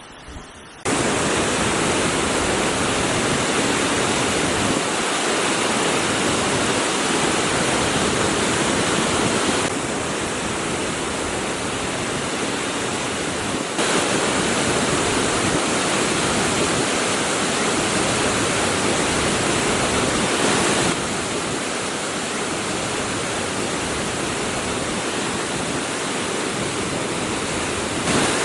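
A flooded waterfall running high after days of rain, pouring down in a loud, steady rush of water. It comes in suddenly about a second in, and its level steps down and back up a few times.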